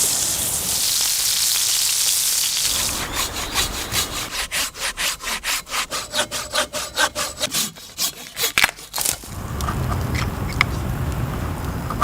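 Hand saw cutting wood, in quick even strokes about four a second over several seconds, after a steady hiss. The strokes stop before the end, leaving a low rumble with a few faint clicks.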